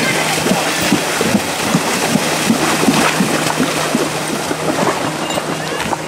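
Horses' hooves churning and splashing through shallow lake water at a fast gait, a dense run of irregular splashes over a steady low hum.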